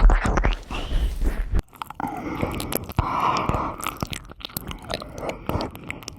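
ASMR ear-licking mouth sounds close to the microphone: wet licking and nibbling with many quick clicks and smacks. A low rubbing rumble sits under them for about the first second and a half.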